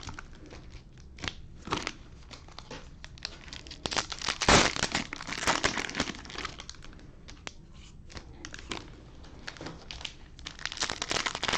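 Cellophane-wrapped trading card packs being handled, the plastic crinkling in scattered bursts, loudest about four to six seconds in.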